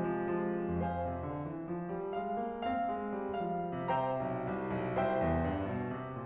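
Background piano music: a melody of separate struck notes over occasional deep bass notes.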